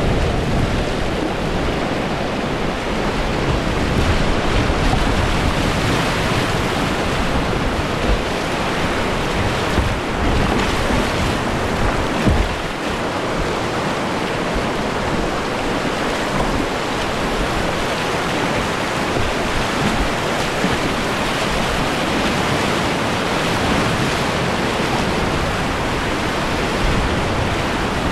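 Whitewater of the River Greta, running at 1.8 m on the gauge, rushing steadily and loudly close to the microphone, with some low buffeting from wind or water on it.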